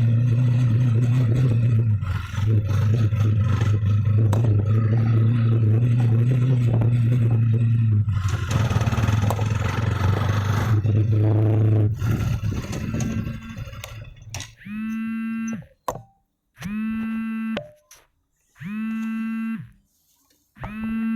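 A vehicle's engine running steadily, fading out about twelve seconds in. It is followed by a string of electronic tones, each about a second long with short silences between.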